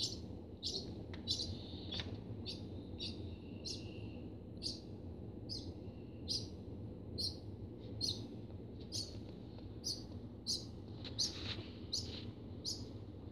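Barn swallow nestling peeping, short high chirps about twice a second, the begging calls of a hungry chick being hand-fed. A low steady hum runs underneath.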